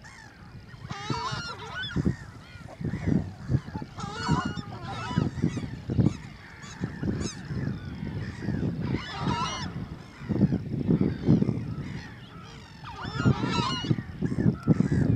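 Wetland waterbirds calling in clusters of wavering calls every few seconds, over a steady low rumble.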